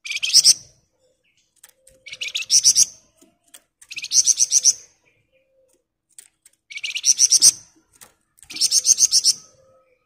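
Caged flamboyan songbird singing five short bursts of fast, tightly packed chattering notes, each burst under a second long and getting louder toward its end. This is the dense rapid trill that bird keepers call 'ngebren rapat'. Faint clicks come between the bursts.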